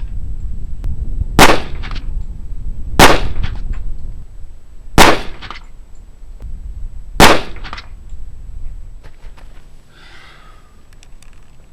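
Four .45 ACP pistol shots from a full-size Springfield Armory 1911, one every one and a half to two seconds, each with a short echo. A few faint clicks follow near the end.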